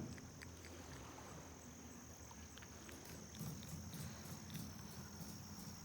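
Insects trilling outdoors, a faint, steady high-pitched drone, with distant voices murmuring faintly underneath.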